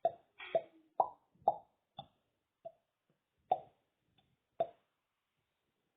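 Mouth pops made by pulling a finger out of the cheek: about eight short pops at uneven intervals, some higher-pitched than others.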